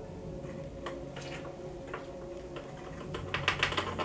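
Sharp clicks of a wooden applicator stick tapping and rattling in a plastic bottle of liquid latex: a few scattered clicks, then a quick run of clicks near the end, over a steady low hum.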